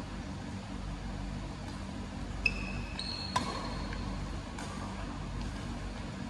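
Badminton rally: two sharp racket-on-shuttlecock hits about two and a half and three and a half seconds in, with brief high squeaks of shoes on the court floor around them and a fainter tap later, over a steady low hum.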